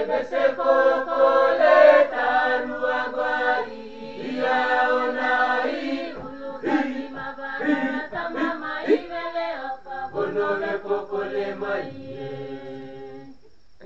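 Youth choir singing a Peroveta, a Papua New Guinean prophetic hymn, unaccompanied in several-part harmony with a low bass line under higher voices. The singing comes in held phrases with short breaks between them.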